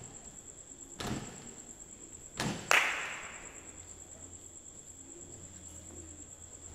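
Three sharp knocks: one about a second in, then two close together about two and a half seconds in, the second being the loudest and ringing briefly. A faint steady high whine sounds throughout.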